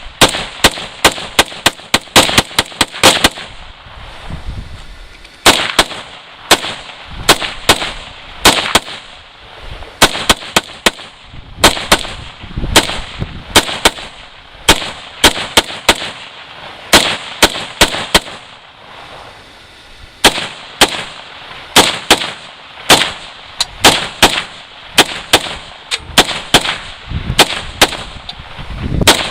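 AK-pattern rifle fed from a 75-round drum magazine being fired in rapid strings of shots, several a second, broken by short pauses.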